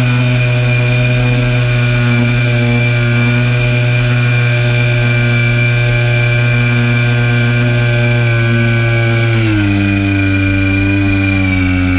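RC airplane's motor and propeller running at a steady, even pitch, heard from the airframe. About nine and a half seconds in the pitch steps down, then keeps sinking slowly.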